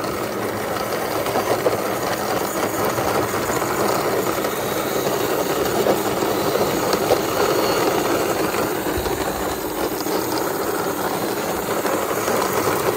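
Plastic wheels of a toy jeep rolling on rough concrete as it is pushed by hand: a steady gritty rolling rumble with small clicks and rattles.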